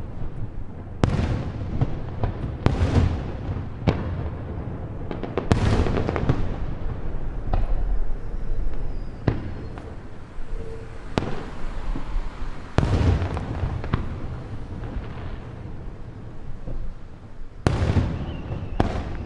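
Aerial fireworks shells bursting one after another, deep booms mixed with sharper cracks, about a dozen in all. Near the end a thin whistle glides downward.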